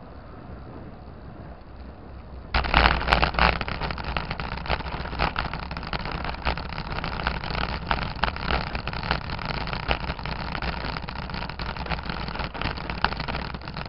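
Bicycle rolling on smooth asphalt, then about two and a half seconds in hitting cobblestones: a sudden, loud, continuous rattling and jolting of the bike and camera mount over the cobbles.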